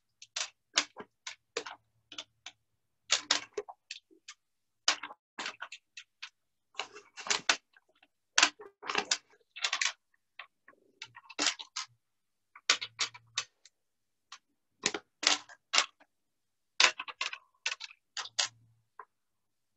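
Small pebbles clicking as they are picked up and set down one by one on a glass tabletop: irregular sharp clicks, often two or three close together, with short pauses between.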